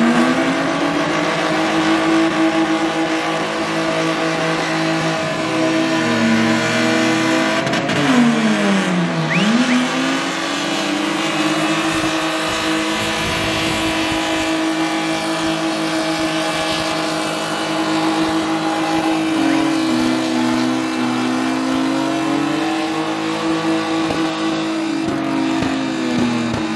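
BMW drift car doing a long burnout: the engine is held at high revs with the rear tyres spinning and squealing. The revs dip and climb back several times, most deeply about eight seconds in.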